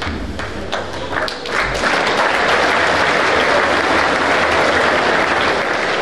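A large audience of schoolboys applauding in a big hall after a haka: scattered claps at first, filling out into steady applause about two seconds in.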